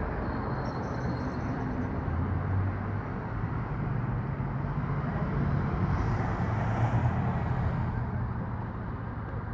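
Outdoor background noise with a low vehicle rumble that swells and fades.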